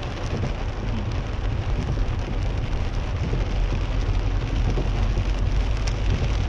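Heavy rain pattering on a car's roof and windscreen, heard from inside the cabin while driving, over a steady low rumble of the car and its tyres on the wet road.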